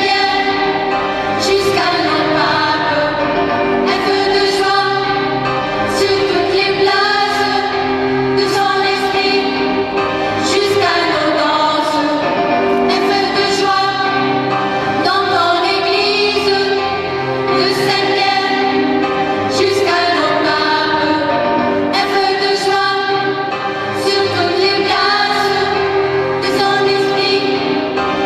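Choir singing a hymn with organ accompaniment, held notes under moving voices in a steady pulse.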